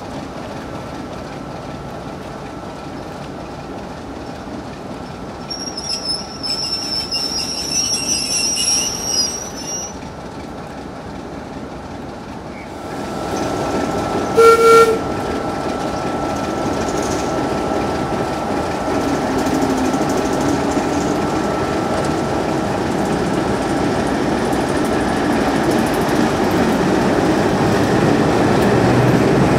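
A heritage diesel train on the move: its wheels squeal high-pitched for a few seconds near the start, a short horn blast sounds about halfway through, and then the train's rumble builds steadily louder to the end.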